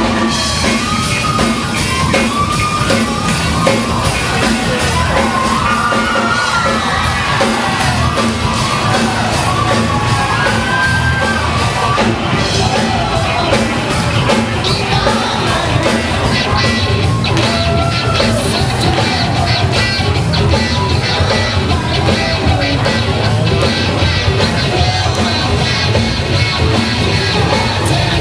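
Live rock band playing loudly in a large hall: electric guitar, electric bass and horns, with a singer.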